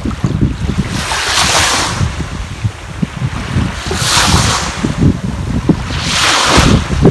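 Sea waves breaking and washing ashore, surging three times, with wind buffeting the microphone in a steady low rumble.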